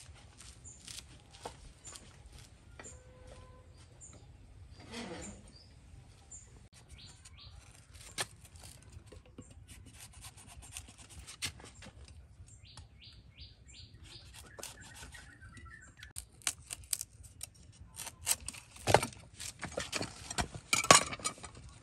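A large knife chopping hands of green bananas off the bunch, with sharp knocks that come thicker and louder near the end as the hands are cut and set down; footsteps in slippers at the start and birds chirping in the background.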